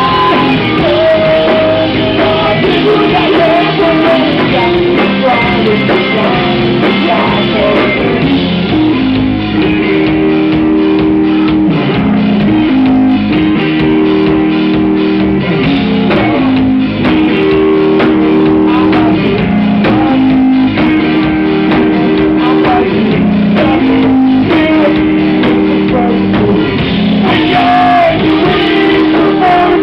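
Live rock band playing: a singer over guitar for the first several seconds, then a guitar riff repeating about every two seconds, with the vocal returning near the end.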